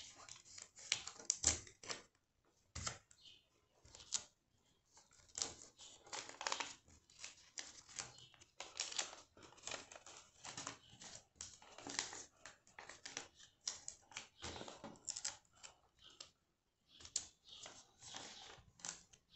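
Sheets of paper being folded and creased by hand: faint, irregular rustling and crinkling with short taps, in quick uneven bursts.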